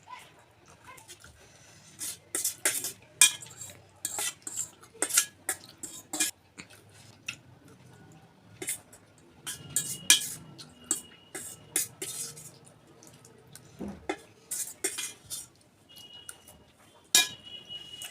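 Mukbang eating sounds: cutlery clinking and scraping against a plate in irregular sharp clicks, some in quick clusters.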